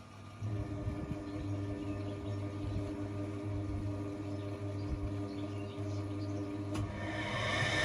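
Old washing machine's electric motor humming steadily, starting about half a second in; a click near the end, then a louder running noise begins to build.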